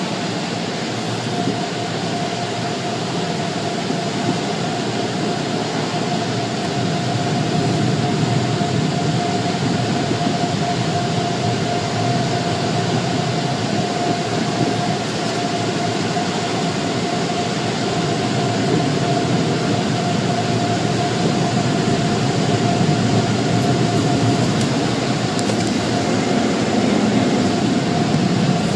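Automatic car wash tunnel machinery heard from inside a car: a steady, loud roar with a constant mid-pitched whine running through it, growing a little louder after about eight seconds.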